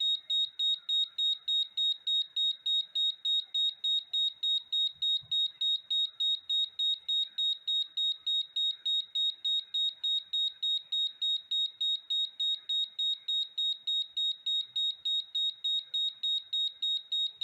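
Gas leak alarm sounding a rapid, high-pitched beep, about three beeps a second, steady and unbroken. The gas leak detector has tripped on inspection test gas during its activation test.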